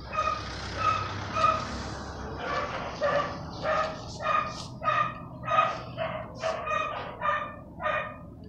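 A dog barking over and over at a steady rhythm, about one and a half barks a second.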